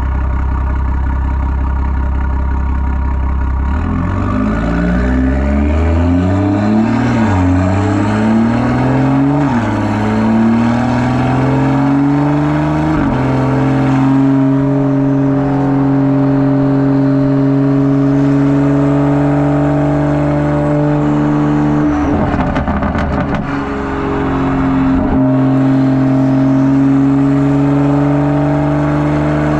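Turbocharged B58 inline-six exhaust of a BMW 340i with a catless 4.5-inch downpipe and the M Performance exhaust valves open, heard at the tailpipe. It starts with a low steady drone, then pulls up through several upshifts, the pitch climbing and dropping back with each shift. It then settles into a steady cruising drone, broken by a brief rattling crackle about two-thirds of the way through.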